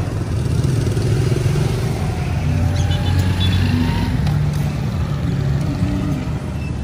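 Motorbike engines running in busy street traffic, a steady low drone.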